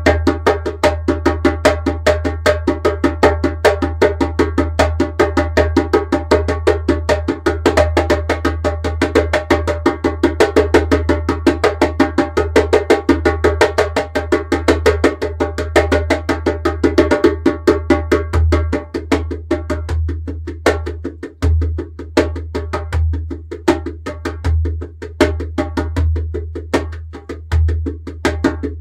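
Djembe played solo with bare hands: a fast, dense stream of slaps and tones that loosens about two-thirds of the way in into a sparser rhythm with deep bass strokes.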